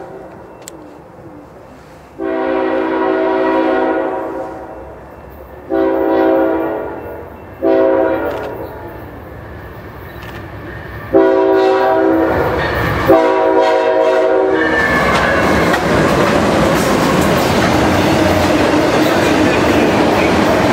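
Freight locomotive's multi-chime air horn sounding four blasts as the train approaches, the first and last long and two shorter ones between. The locomotive then passes close by, followed by freight cars rolling past with wheel and rail noise and a clickety-clack of wheels over rail joints.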